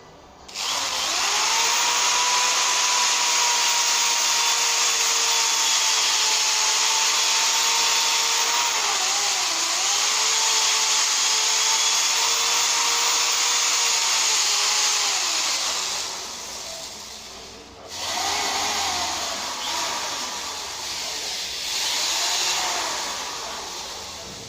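Small electric power tool running with a steady whine, its pitch dipping briefly as it takes load, while it trims the mouth of a plastic shotgun hull level after the factory star crimp. It stops about fifteen seconds in, then runs again more unevenly and fades near the end.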